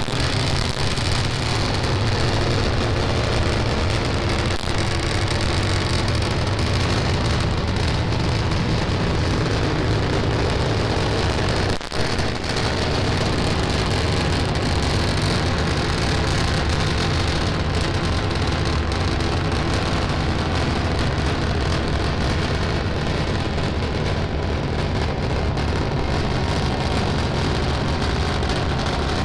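Starship SN10's three Raptor engines firing during ascent: a steady, heavy rumbling roar with a brief dip about twelve seconds in.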